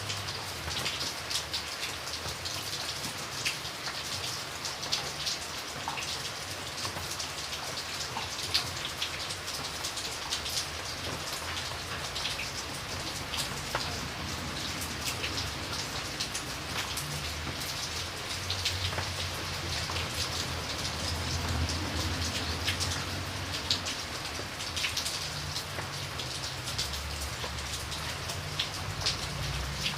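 Steady rain falling on a surface, with many individual drops ticking sharply over the hiss. A low rumble swells in the background about two-thirds of the way through and again near the end.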